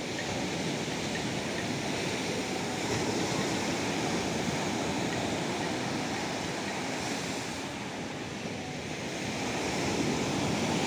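Sea waves washing onto a beach: a continuous rush of surf that eases briefly and swells again near the end.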